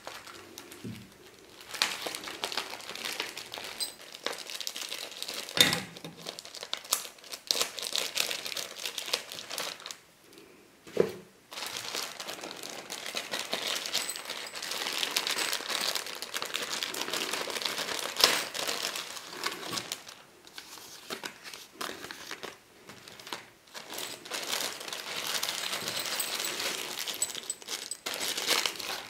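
Clear plastic packaging bags crinkling and rustling as they are handled and opened, broken by a few sharp knocks.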